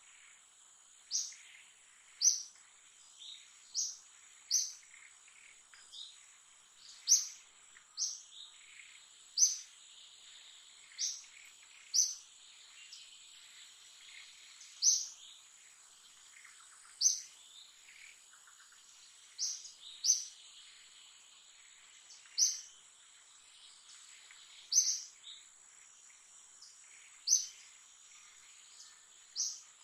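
A bird repeating a short, sharp, high call about every one to two seconds over a steady high-pitched insect drone.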